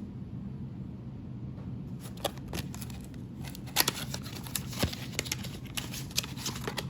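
Handling and opening a trading-card-game starter deck box: scattered clicks and rustles of cardboard and packaging, starting about two seconds in, over a steady low hum.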